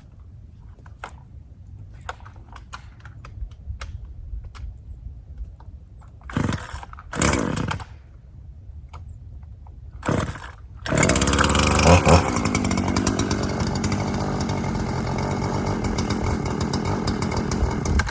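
Two-stroke chainsaw being pull-started: three short pulls on the starter cord, with the engine catching on the third and then running steadily. The engine revs briefly just after it catches.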